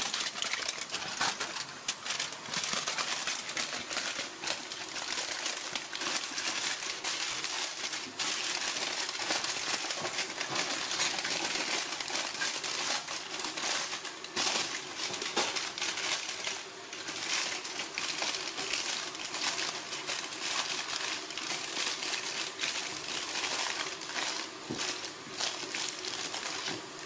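Aluminium foil crinkling and rustling with many small crackles as hands press and fold it around a slab of grilled honeycomb.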